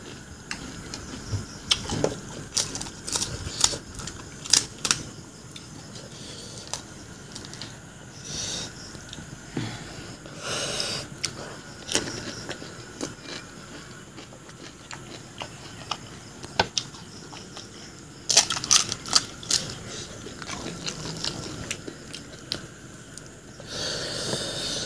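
Close-up mouth sounds of eating pani puri: crisp fried puri shells cracking and crunching, with wet chewing clicks and a few short hissy slurps. The crunching comes in two busy bursts, a couple of seconds in and again near the end.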